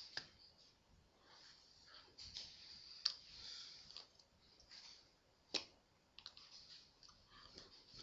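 Soft clicks and rustling from a person signing: hands tapping and sleeves brushing. A few sharp clicks stand out, the loudest about three and five and a half seconds in.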